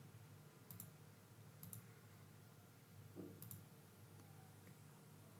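Faint computer mouse clicks: three quick double clicks spread over a few seconds, over a low hum of room tone.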